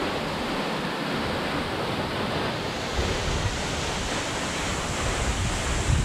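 Tall waterfall plunging into its pool: a steady, even rush of falling water, with low wind rumble on the microphone swelling now and then.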